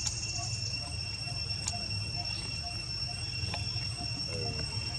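Insects trilling steadily, two unbroken high-pitched tones over a continuous low rumble, with a few faint clicks.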